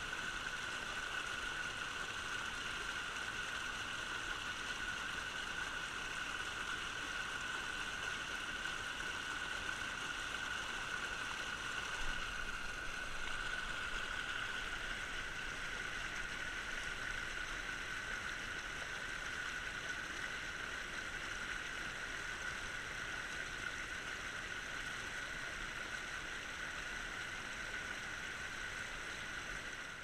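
Creek water rushing steadily over rocks and a small cascade close by.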